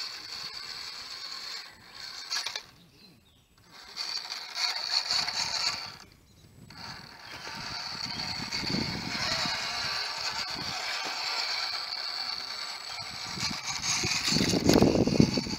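1/10-scale RC crawler's motor and gearbox whining as the truck crawls over rock. The whine drops out twice, briefly, as the throttle is let off. A louder burst of scrabbling noise comes near the end.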